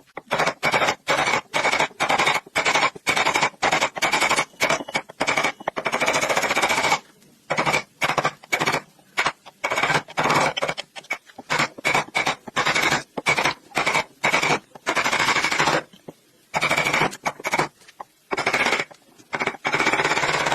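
Power tool working wood, running in many short bursts that start and stop abruptly, with a steady whine through each burst.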